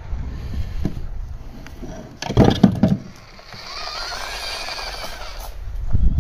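FTX Ravine RC crawler's wheels and chassis knocking and clattering as it drops off a ramp onto tarmac, about two seconds in. Then the whine of its two 380 electric motors rises and falls as it drives on.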